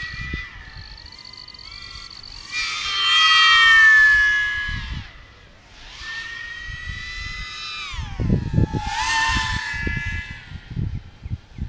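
Flywoo Mr Croc 5-inch racing quadcopter on a 6S lipo flying fast laps: its motors whine in a stack of pitches that rise and fall, loudest as it passes about three seconds in, and the pitch drops sharply as it goes by. A second pass follows, ending near nine seconds in a falling pitch and low rumbling thumps.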